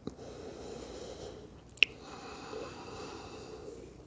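A person taking a slow, audible breath in child's pose, a soft steady hiss of air. A single sharp click sounds a little before halfway.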